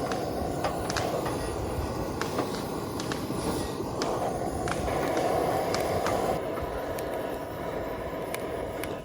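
Heavy rain drumming steadily on a camping tarp, with scattered sharper ticks of individual drops.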